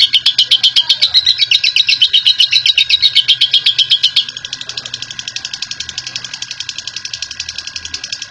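Lovebird giving a long 'ngekek' song: a fast, unbroken chattering trill of about ten shrill notes a second. About halfway through it drops suddenly in loudness and carries on at the same pace.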